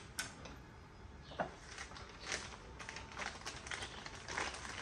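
Faint crinkling and light clicks of food, wrappers and tableware being handled at a meal table, getting busier about halfway through.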